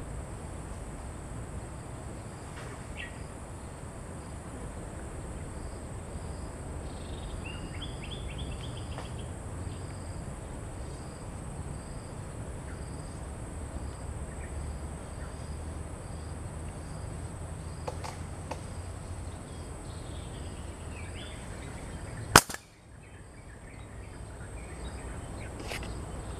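Insects buzzing and chirping steadily over a low rumble, with a few short bird calls. About three-quarters of the way through comes one sharp, loud snap, a fish slingshot (paser) being fired at a fish in the water.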